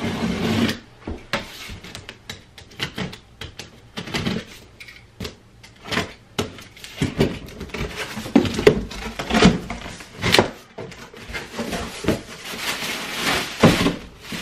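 Cardboard shipping box being slit along its tape with a utility knife and its flaps pulled open: irregular scraping, tearing and knocking of cardboard. Near the end, a plastic bag inside the box rustles as it is handled.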